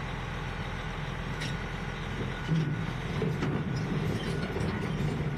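Heavy vehicle engine running steadily, a low rumble that swells louder about two and a half seconds in.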